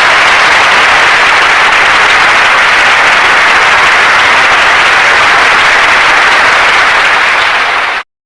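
Audience applauding, dense and steady, cutting off suddenly near the end.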